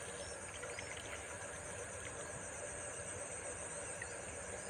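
Crickets trilling in a steady, high-pitched chorus.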